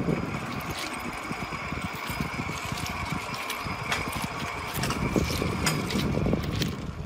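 Krab-S-Light track-geometry measuring trolley rolling along the rails as it is pushed: a steady rattling rumble of its wheels on the rail, with a faint steady whine and scattered clicks. Footsteps crunch on the ballast.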